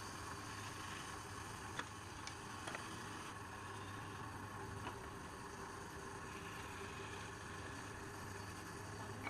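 Wood lathe running with a steady low hum, with a few faint ticks.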